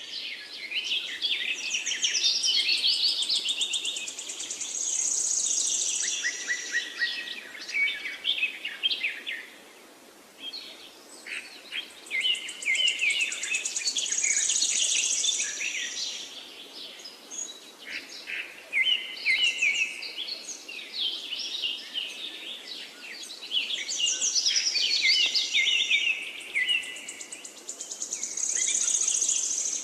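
A songbird singing long, complex phrases of rapid high chirps and trills, with short pauses between phrases, over a faint steady outdoor hiss.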